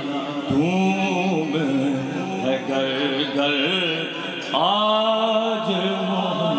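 A naat sung in two long phrases of drawn-out, wavering notes, the second phrase starting about four and a half seconds in, over a steady low hum.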